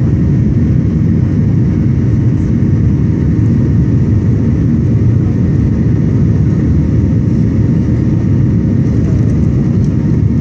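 Steady cabin noise of a Boeing 737-900 climbing after takeoff: its CFM56-7B turbofan engines and the airflow, heavy in the low end, with a faint steady whine above.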